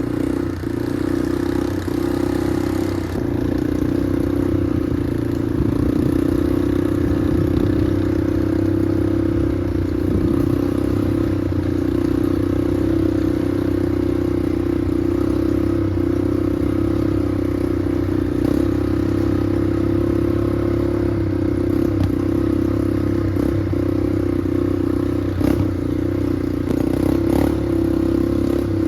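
Small off-road vehicle engine running at a steady speed, with a few brief knocks.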